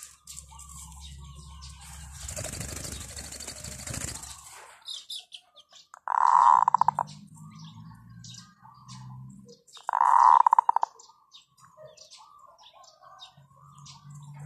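Small birds chirping over and over, a rushing noise about two seconds in, and two loud, rapidly trilled bird calls of about a second each, around six and ten seconds in.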